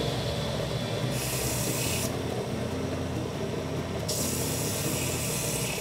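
Small bench sander running steadily while a split bamboo strip is pressed against it twice, about a second in and again about four seconds in, each contact a hissing rub lasting a second or two, flattening the strip's node.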